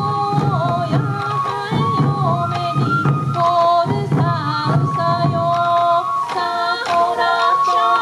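Sansa odori festival music: sansa taiko drums struck over and over under a high melody line of held and sliding notes.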